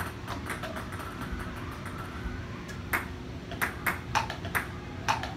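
Ping-pong balls bouncing on a table-tennis table and against plastic cups: a string of sharp, irregular clicks, the loudest a quick run of bounces about three to four and a half seconds in.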